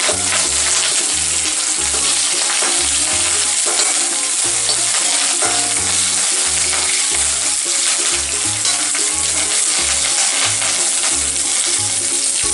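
Coriander seeds, peppercorns, dried red chillies, shallots and fresh curry leaves sizzling in hot coconut oil in a kadai, stirred with a metal perforated skimmer, as the spices are roasted for a coconut curry paste. Background music with a rhythmic bass line plays under the steady sizzle.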